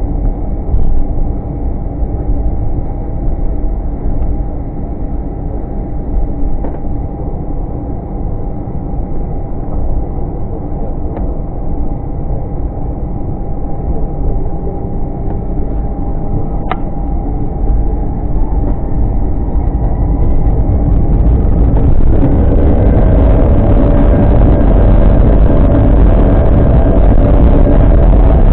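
Cabin noise inside an Airbus A319 in flight: a steady jet-engine and airflow drone with a few faint steady tones, climbing through cloud. About 22 seconds in it changes abruptly to a louder steady cabin drone with different tones, heard at cruising altitude.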